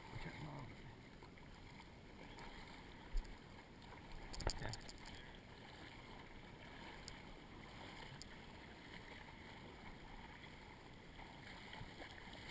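Water sloshing and splashing as a person and a dog wade through shallow floodwater in a swamp. A single sharp knock comes about three seconds in, and a short clatter of clicks follows about a second later.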